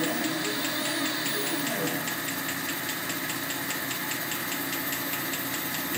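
Bridgeport CNC milling machine's axis drives moving the table around a circular path as a dry run of the program, faster than cutting feed and with no cutting. A steady mechanical hum, with faint whines that shift in pitch during the first two seconds.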